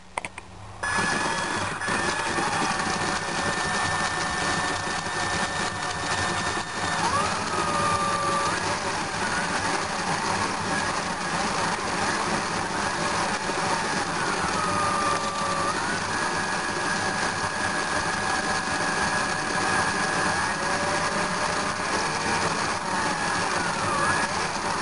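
Plastic K'nex model engine and gearbox being turned by a motor, its pieces clattering steadily over a high motor whine. The noise starts suddenly about a second in, and the whine drops in pitch and recovers about three times.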